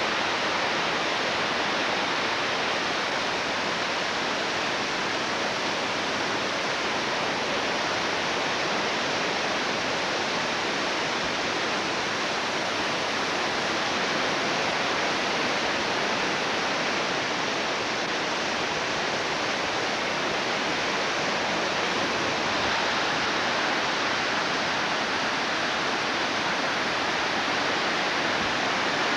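Floodwater of a swollen creek rushing in a steady, unbroken roar.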